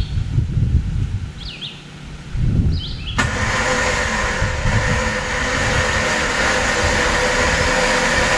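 Low rumbling with a few bird chirps, then about three seconds in an off-road vehicle's engine starts to be heard abruptly, running steadily with a rushing noise.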